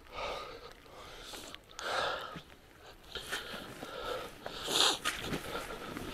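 A person breathing heavily close to the microphone while walking uphill over rough ground, a breath every second or two, the loudest about five seconds in.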